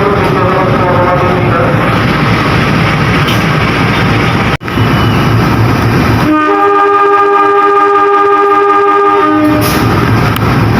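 Train horn sounding one long steady blast of about three seconds, over the continuous rumble of a train moving through the station.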